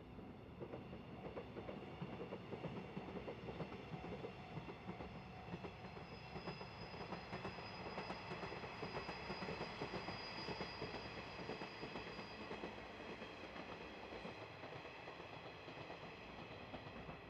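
KiHa 110 series diesel railcar train running past, its wheels clicking over the rail joints, the sound swelling and then fading as it passes.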